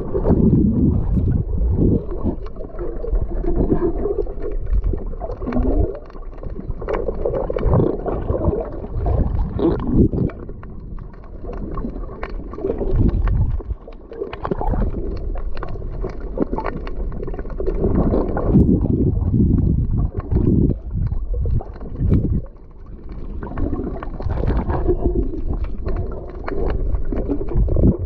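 Muffled water gurgling and sloshing, swelling and ebbing irregularly, with scattered small clicks and knocks.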